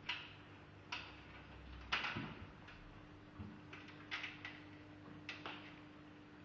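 Open hand slapping a microwave oven, about eight sharp slaps at uneven intervals, over a low steady hum.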